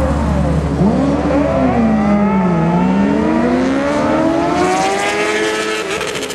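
Sportbike engines at full throttle accelerating down a drag strip, their pitch climbing, dropping back at each gear change and climbing again, over a steady low engine rumble that fades near the end.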